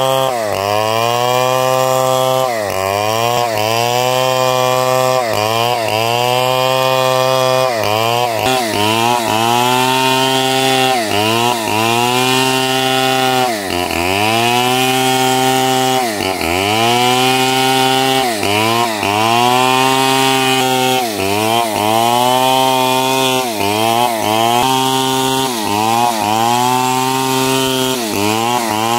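Powered saw machine cutting large timber into blocks. Its pitch dips each time the blade bites into the wood and recovers between cuts, every second or two, over a steady low hum.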